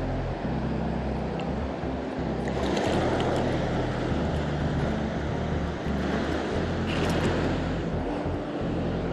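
Rushing water of the strong current in the dam's outflow, a steady wash of noise with a low rumble underneath that swells slightly a few times.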